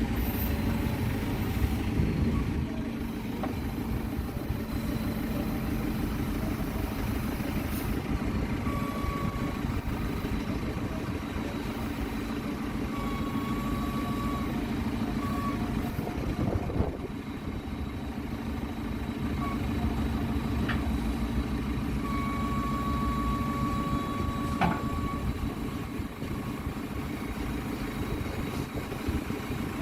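A motor vehicle engine running steadily, with a few short, thin tones over it.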